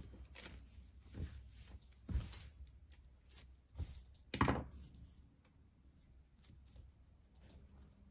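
Handling noises as crocheted paper-yarn pieces are picked up and worked by hand: a few soft knocks and rustles, the loudest about four and a half seconds in, then only faint handling.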